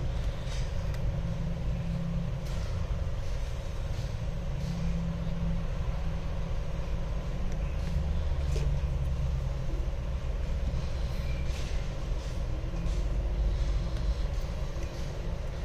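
Steady low background rumble with a faint constant hum, and a few faint light taps scattered through it.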